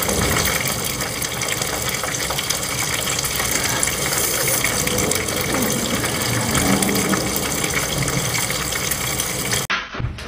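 Battered food deep-frying in a pan of hot oil: a steady, dense sizzle that cuts off suddenly near the end.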